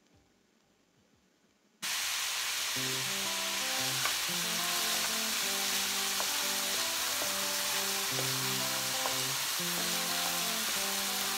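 Chopped red onion frying in hot oil in a stainless steel pan, a loud steady sizzle that starts abruptly about two seconds in.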